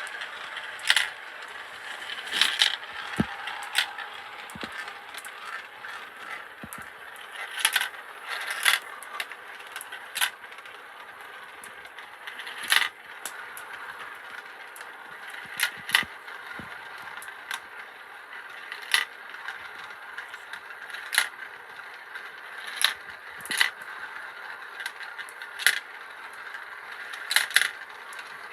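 Marbles rolling through a marble run and circling in funnels: a steady rolling rattle, broken every second or two by sharp clicks as marbles drop and strike the track.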